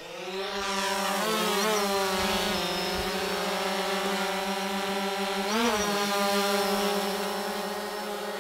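White quadcopter drone's propellers spinning with a steady buzzing whine. The pitch rises in the first second, then wavers briefly twice, about one and a half seconds in and again near six seconds, as the rotor speed changes while the drone is held and then flies.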